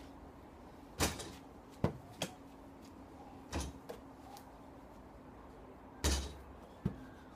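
A rubber ball striking a toy basketball hoop's backboard and rim during shots, making a handful of separate knocks. The two loudest come about a second in and about six seconds in, with lighter knocks in between.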